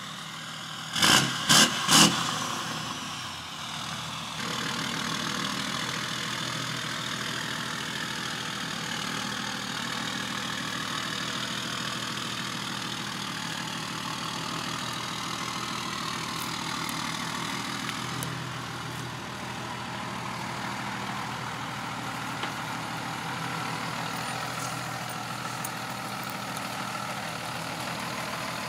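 A vehicle engine running steadily, with a low even hum, after three sharp knocks about a second in.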